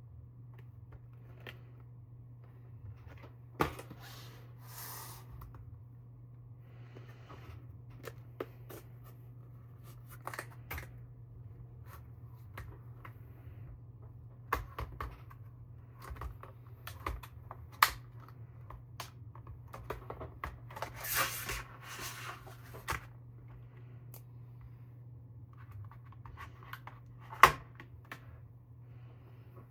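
Hands handling and opening the RAM kit's retail packaging: scattered sharp clicks and taps, the loudest near the end, with a few seconds of rustling or tearing of packaging in the second half. A steady low hum runs underneath.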